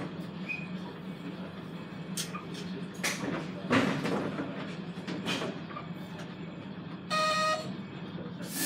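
KiHa 200 diesel railcar's engine idling with a steady low hum while the railcar stands at a station, with a few knocks and rustles about three to four seconds in. A short, clear half-second tone sounds about seven seconds in.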